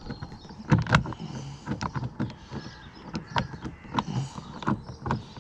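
Irregular light clicks and knocks from a screwdriver and the plastic door panel as a Torx screw is being turned into a car door card.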